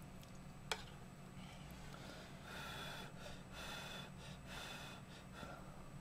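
A wooden spoon clicks once against the bowl, then come several short breathy puffs: a person blowing on a spoonful of hot ramyun noodles to cool it. A faint low hum runs underneath.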